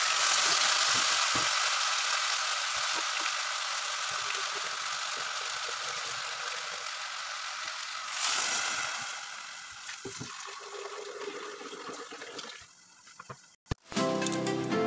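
Penne and vegetables sizzling in a hot pot, with a steady hiss. About eight seconds in, water is poured in from a jug and the hissing swells, then dies down. Just before the end the sound drops out and music starts.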